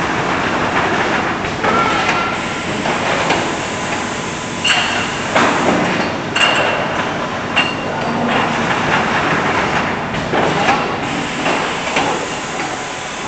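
Automatic wrap-around case packer running: continuous mechanical clatter with irregular knocks and several short, high pings as bottles are fed along the conveyor.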